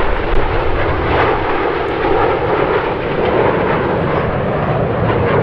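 Formation of BAE Hawk T1 jet trainers flying past with smoke on, giving a steady rushing jet noise from their turbofan engines.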